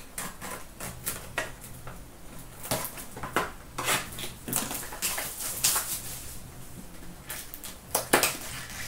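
Wrapping being cut and torn off a sealed cardboard box of trading cards, then the box handled and its flap pulled open: a string of irregular crinkling, tearing and scraping noises.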